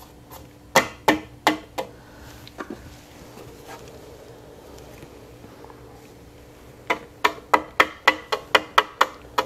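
Tapping knocks made at a Steelman ChassisEar wireless transmitter clipped to a car's licence plate, picked up and played back through the ChassisEar receiver's speaker. There are four sharp taps about a second in, then a quick run of taps, about four a second, near the end, over a faint steady hum.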